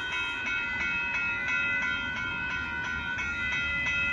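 Railroad grade crossing bell ringing steadily in rapid, evenly spaced strokes, with a low rumble underneath.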